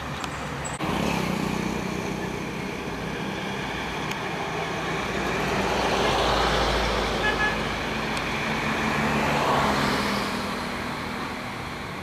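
Road traffic: motor vehicles passing, over a steady engine hum. The noise swells about six seconds in and again around ten seconds, then fades.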